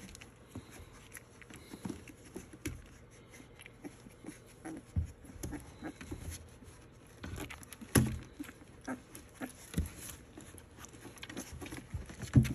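Young puppies squirming on towels in a plastic tub while a hand pets them, with soft rustling and scattered small taps and scrapes. There are a few louder bumps, about five, eight and ten seconds in.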